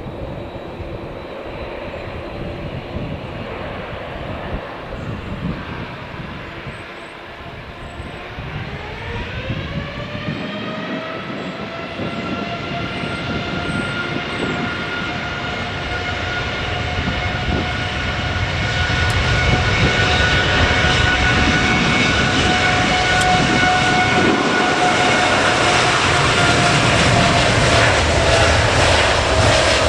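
Air India Boeing 787 Dreamliner's twin turbofan engines spooling up to takeoff power. The engine whine rises in pitch about eight to eleven seconds in, then holds steady and grows louder as the takeoff roll begins.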